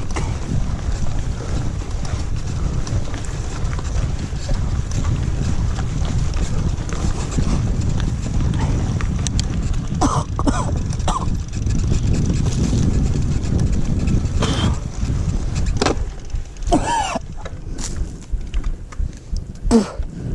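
Wind on the microphone and the rumble of a mountain bike rolling over the trail. The rumble drops off near the end, and the rider coughs and clears his throat a few times, which he puts down to a mosquito.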